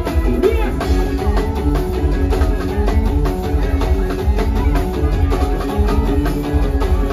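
Loud live band music from a parade music truck's stage and speaker stacks: a drum kit keeps a steady beat over heavy bass.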